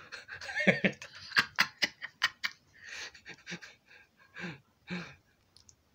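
A person's breathy huffs and pants between lines of speech, with a quick run of sharp clicks, about five a second, starting about a second and a half in.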